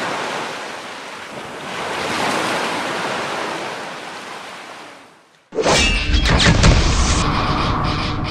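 Sea waves washing in: a swell near the start and another about two seconds in, fading away by about five seconds. About five and a half seconds in, loud music with heavy bass starts suddenly.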